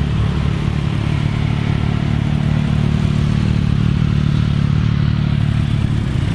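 A vehicle engine running steadily with a low, even rumble and no revving.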